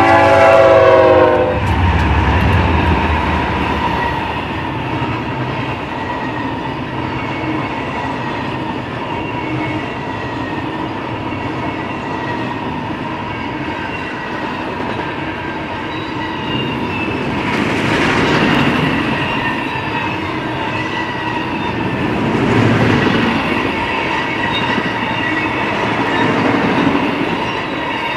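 Multi-note air horn of a BNSF freight train ending about a second and a half in, then the GE ES44C4 diesel locomotives passing with a brief low engine rumble. After that comes the steady rumble and clatter of intermodal double-stack container cars and trailer flatcars rolling by on the rails, with a faint steady high tone and swells in loudness twice near the end.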